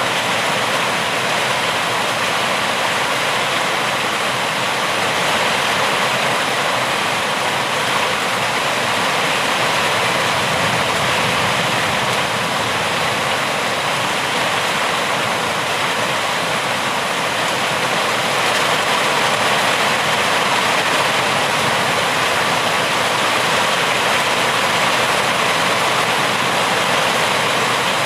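Steady, heavy rainfall: a dense, even hiss of rain with no single drops or thunder standing out.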